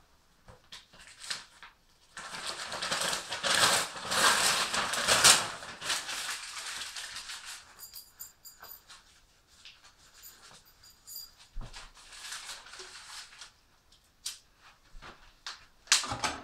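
Sheets of newspaper being handled and crumpled, a dense crackling rustle from about two seconds in to about seven, then scattered small clicks and knocks, with a sharper knock near the end.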